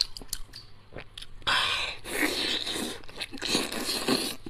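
Close-miked chewing of tender, falling-off-the-bone braised pork rib meat: a few small mouth clicks, then steadier chewing from about a second and a half in.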